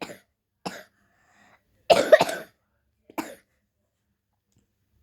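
A young girl coughing in four short fits: a brief cough at the start, another under a second in, a louder double cough about two seconds in, and a last short one about three seconds in.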